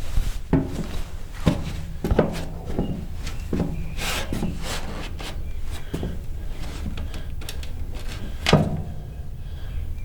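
A series of knocks and thuds, each with a short ringing tail and the loudest near the end, over a steady low hum.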